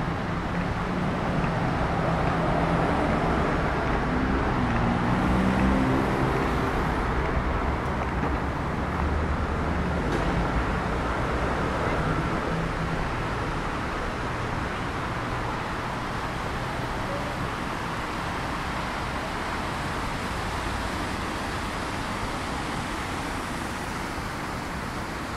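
City street traffic: road vehicles running past on wet streets, with a low engine hum through the first half and a brief rising-and-falling engine note about five seconds in.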